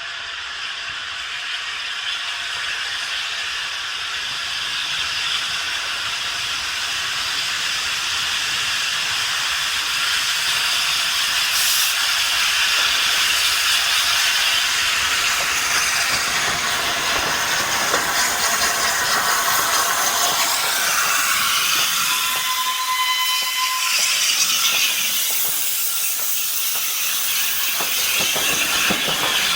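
Steam hissing from the LNER Peppercorn A1 Pacific steam locomotive 60163 Tornado, growing steadily louder. A short whistle note sounds briefly about two-thirds of the way through.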